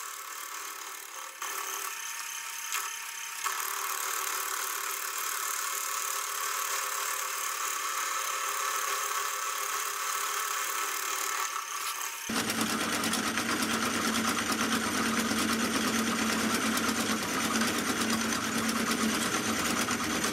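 Sieg X2.7L milling machine running a T-slot cutter through metal, cutting slots: the spindle runs steadily with the hiss and chatter of the cut. About twelve seconds in the sound turns suddenly louder and fuller, with a steady low motor hum, and it stops abruptly near the end.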